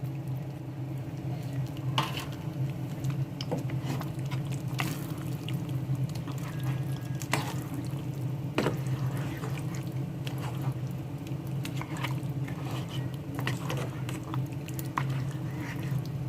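Trotters (paya) being mixed into fried masala in a pot, giving wet, liquid sounds and scattered knocks of the spoon against the pot. A steady low hum runs underneath.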